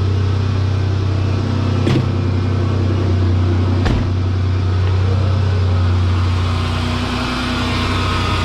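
2010 Dodge Grand Caravan's 3.8-litre V6 idling steadily and smoothly, its misfire cured by a replacement PCM, with loud exhaust noise from a hole in the exhaust. Two sharp clicks about two and four seconds in.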